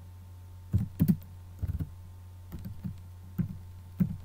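Computer keyboard keys clicking in an uneven run of about seven keystrokes as text is typed, over a steady low hum.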